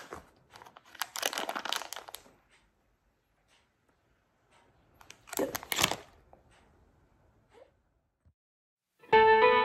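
Plastic snack bags crinkling as they are handled, in two bursts about a second and five seconds in. Guitar music starts near the end.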